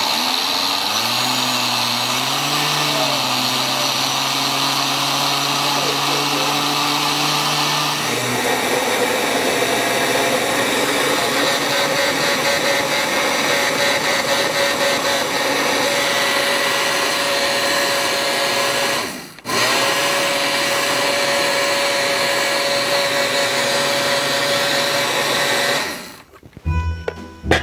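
Countertop blender running loudly and steadily, its motor pitch shifting about 8 s in. It stops for a moment about two-thirds of the way through, restarts, and cuts off near the end.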